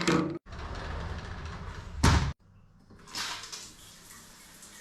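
Two loud thuds about two seconds apart, like a door being shut, with a steady hiss between them and again near the end.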